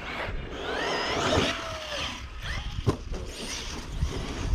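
Brushless electric RC truck's motor whining, rising and falling in pitch as it accelerates and lets off, with a sharp knock about three seconds in.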